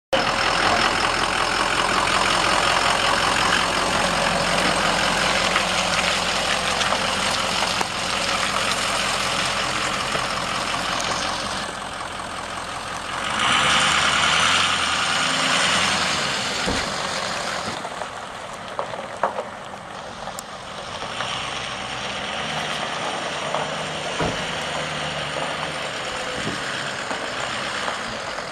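A 2004 Ford F350 Super Duty's 6.0-litre V8 turbo diesel running as the truck drives around, loudest as it passes close about fourteen seconds in, then fainter. A few sharp clicks in the second half.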